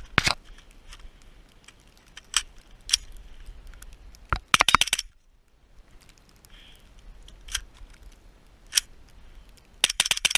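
Suppressed AR-15 pistol in .300 AAC Blackout, fitted with a SilencerCo Omega 300 suppressor, firing. Single shots come a second or more apart, with two quick strings of several shots, one about halfway through and one near the end.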